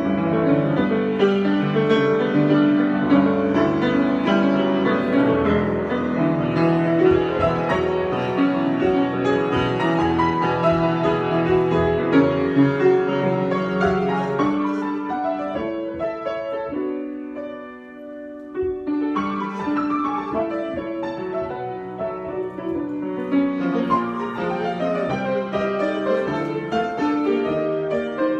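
Solo piano improvisation: busy, flowing passages of notes that thin out a little past halfway to one held chord, then pick up again.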